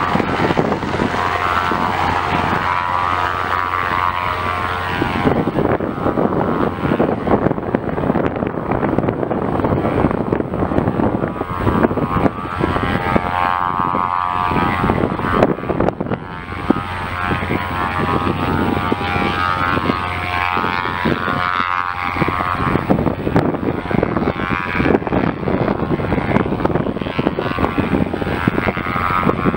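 Eurocopter AS350 B3 helicopter in flight after take-off: the steady whine of its single turboshaft engine over the continuous chop of its rotor blades.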